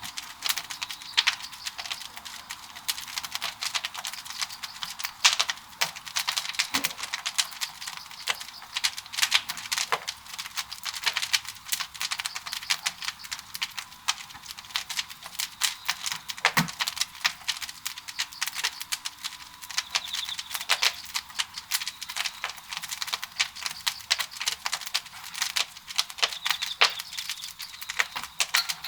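Wood fire crackling and popping in the firebox of a traditional Korean wood-fired kiln: dense, irregular crackles, many a second, with a few sharper pops.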